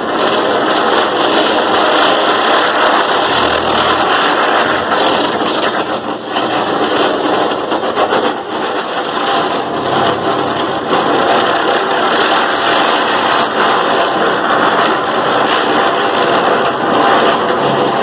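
A chakri ground-spinner firecracker burning and spinning inside a metal thali plate, giving a loud, steady rushing hiss of sparks throughout.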